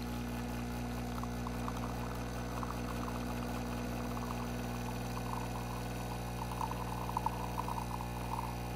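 Breville Bambino espresso machine's vibratory pump humming steadily as it pushes water through the puck during an espresso extraction. Espresso streams trickle into a glass cup, with small ticks and spatters that grow more frequent toward the end.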